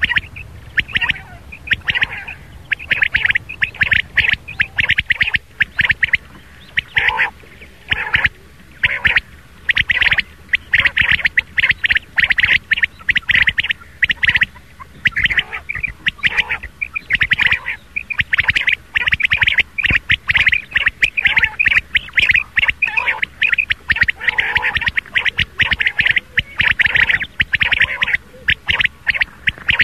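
Rain quail calling over and over from a lure recording: quick runs of short, sharp, high notes with brief pauses between them.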